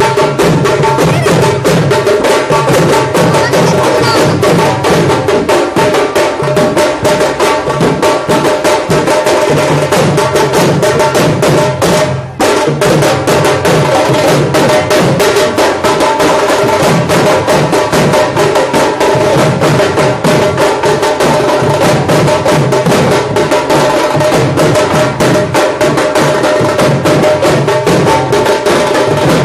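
Loud music driven by fast, steady drumming, with held ringing tones underneath; it drops out for a moment about twelve seconds in.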